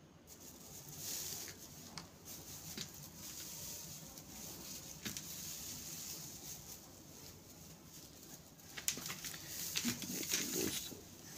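Dry grass packing rustling and crackling as hands pull the bundle apart to get at the eggs packed inside it. The handling grows louder and busier in the last couple of seconds.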